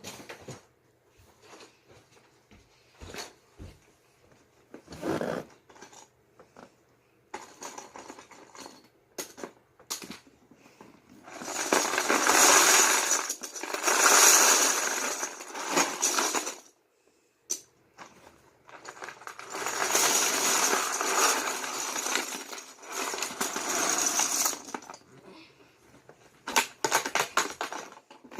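Loose plastic Lego bricks clattering, first as scattered clicks, then in two long dense spells of clatter about twelve and nineteen seconds in, as a big heap of bricks is poured and spread out.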